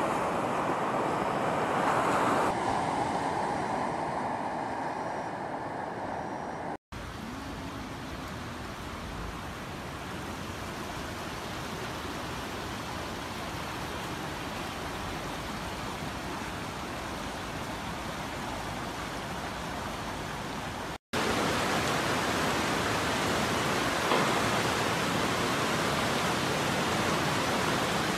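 Steady rush of fast-flowing muddy floodwater, with rain. The sound breaks off abruptly twice and resumes at a slightly different level.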